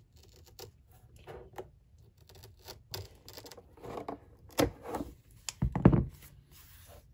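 Scissors snipping through thick veg-tan leather in a run of short, irregular cuts, with the stiff leather rustling as it is handled. A few louder knocks come about two-thirds of the way through as the cut piece is moved on the mat.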